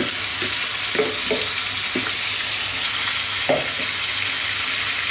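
Marinated chicken sizzling in hot oil in a frying pan, just added. A few short scrapes and knocks of a spatula against the pan, the loudest about three and a half seconds in.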